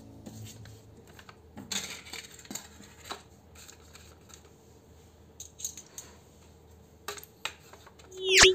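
Light handling of a phone's retail box contents: scattered clicks, taps and rustles of cardboard inserts, paper leaflets and a USB cable. Near the end a short electronic whoosh with a held tone, the loudest sound here.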